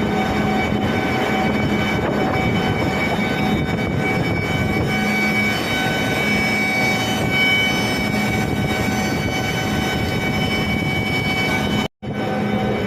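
A newly installed Carrier 06N semi-hermetic screw compressor running under load, a steady dense hum with several steady whining tones on top. The sound cuts out for an instant near the end.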